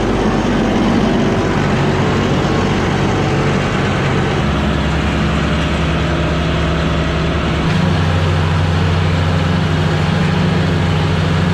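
John Deere utility tractor's diesel engine running under load while mowing tall grass, a steady engine note with the mower noise around it. The engine note shifts to a different pitch about four and a half seconds in and again near eight seconds in.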